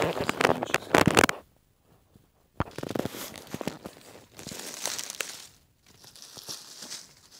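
Dry fallen leaves crunching and crackling underfoot in a quick run of steps over the first second and a half. After a short pause comes softer, uneven rustling of leaf litter being disturbed close to the ground.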